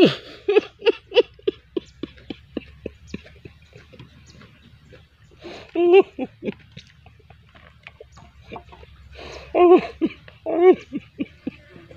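A person eating chili: quick wet lip smacks and chewing clicks, about four a second, broken by short groaning vocal sounds about six and ten seconds in as he reacts to the heat of bird's-eye chilies.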